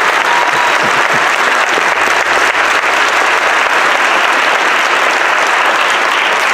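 Theatre audience applauding steadily: dense, continuous clapping from a large crowd.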